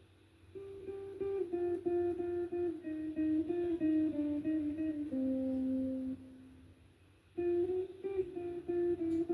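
Guitar played as a melody of quick single notes that starts about half a second in. A held note rings out and fades about six seconds in, and the playing picks up again about a second later.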